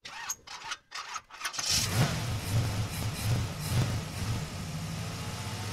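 Car engine starting: a few short bursts of cranking, then it catches about a second and a half in, revs up several times and settles to a steady idle.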